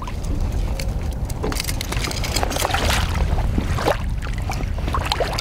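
Musky thrashing in a landing net held in the water, with water splashing and sloshing in irregular bursts over a steady low rumble.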